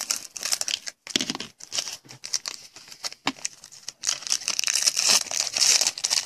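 Foil wrapper of a trading card pack being torn open and crinkled: sharp crackles and rips that grow denser and louder about four seconds in.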